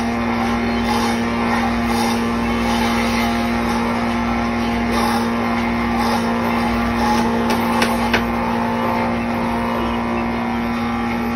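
A machine's motor running steadily with a constant hum over a broad noise, with a few sharp clicks about eight seconds in.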